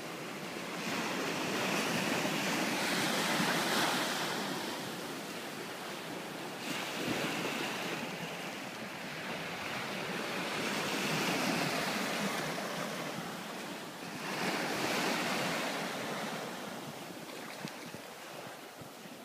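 Small surf washing up the beach and foaming over the sand at the water's edge, swelling and fading about four times as each wave runs in and drains back.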